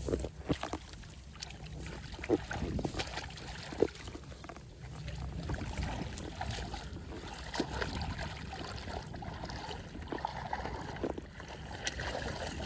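Splashing and sloshing in shallow muddy water as fish are caught by hand, with scattered short knocks and splashes over a steady low background rumble.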